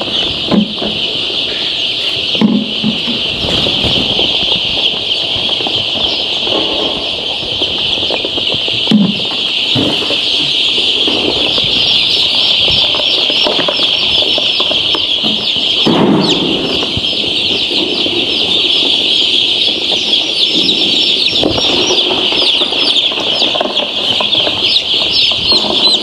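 A large flock of week-old chicks peeping without pause, a dense mass of high chirps that grows louder from about twelve seconds in. Occasional low knocks and rustles of chicks being handled sound under the peeping.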